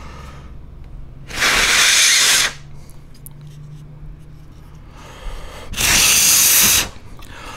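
Two hard blasts of air, each about a second long, blown into a laptop's CPU cooling fan to spin it and check for a suspected bearing noise.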